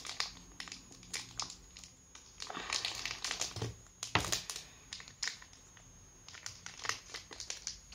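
Plastic wrapper of a sour apple candy stick crinkling and rustling in irregular bursts as it is handled and tugged at to get it open.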